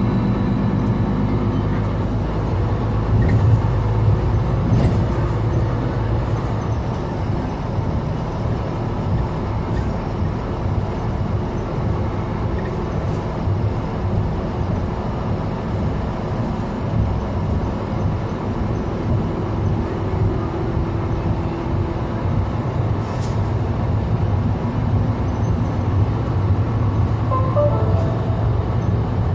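Steady diesel engine and road noise of a Mercedes-Benz Citaro C2 articulated city bus, heard from inside the cabin as it drives along at a steady pace.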